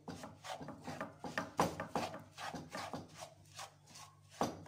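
Wooden spoon scraping and stirring gritty semolina through sugar syrup in a frying pan, in quick repeated strokes of about three a second, with one louder scrape near the end.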